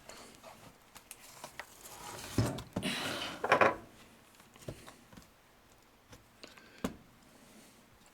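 Scattered light clicks and handling noises from a laptop being worked on by hand, with a louder rustling scrape about two and a half to four seconds in.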